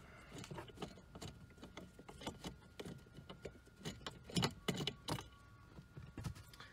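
Hand screwdriver turning out screws from the plastic dash panel beneath a car's glove box: scattered small clicks and scrapes, with a few louder knocks a little past halfway.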